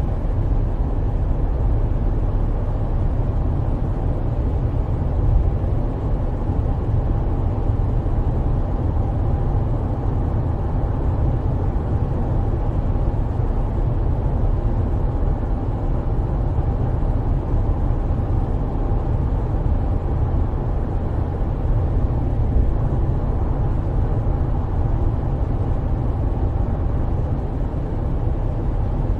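Coach running steadily, a constant low rumble of engine and road noise with no change in speed.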